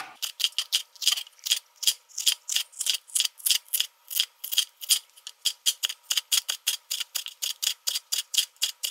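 Kitchen knife slicing jalapeño peppers into rounds on a cutting board: a steady run of crisp knife taps, about four a second.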